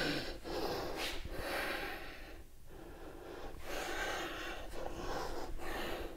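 A woman breathing heavily with exertion during a yoga workout: several audible breaths in and out, each lasting up to about a second.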